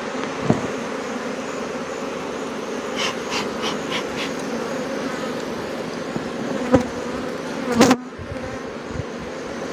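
Western honeybee colony buzzing steadily from an opened hive, a dense wavering hum, stirred up as its frames are lifted out. A few sharp knocks of wooden frames and the frame grip against the hive box, the loudest about eight seconds in.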